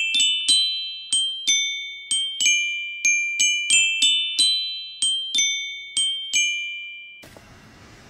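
Background music: a slow, high chiming melody of single struck notes, each ringing out and fading. It stops about seven seconds in, leaving faint room noise.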